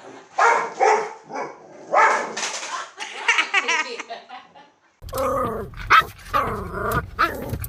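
A dog barking in several short, loud barks, then a quick run of higher yips. About five seconds in, the sound cuts abruptly to another recording with a steady low hum under further calls.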